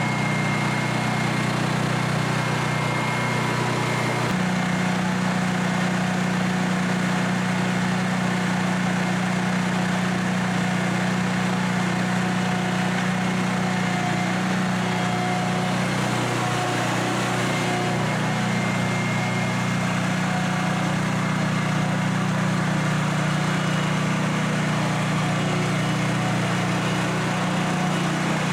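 Scag Windstorm stand-on leaf blower running: a steady engine drone under a broad rush of air from its blower fan. The low drone steps up a little about four seconds in.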